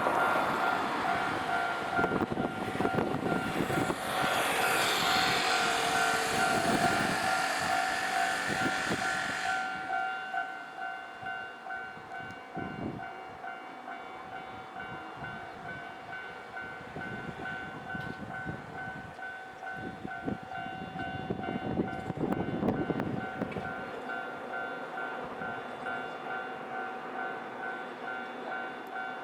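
Railway level-crossing warning bell ringing in a rapid, steady repeating two-tone pattern while a Nankai Main Line electric train passes over the crossing, its wheels and motors loud for the first ten seconds or so. The bell keeps ringing after the train's noise cuts off, and a further rumble swells briefly a little past twenty seconds in.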